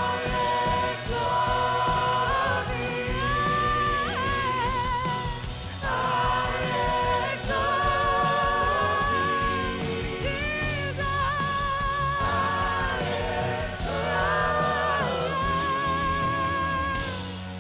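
Worship music: sung vocals with vibrato, held notes and backing voices over a band with steady bass.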